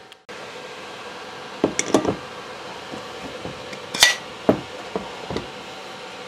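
Metal parts of a Ford 3G alternator, the stator and housing half and the rotor, clinking and knocking as they are handled and fitted together. There are a few light knocks about two seconds in, a sharper ringing metal clink about four seconds in, then a few softer knocks, over a steady hum.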